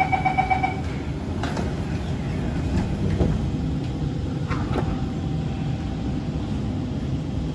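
Door-closing chime of a Kawasaki C151 MRT train beeping rapidly for about the first second. Then a steady low hum inside the carriage, with a few short knocks as the doors shut.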